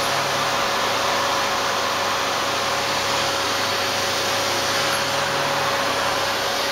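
Vacuum cleaner running steadily: an even rushing noise with a faint constant whine.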